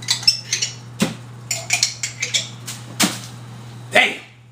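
A glass jar and spoon clinking and knocking as they are handled, a sharp clink every half second to second, over a steady low hum. There is a louder swish about four seconds in, as the hum drops away.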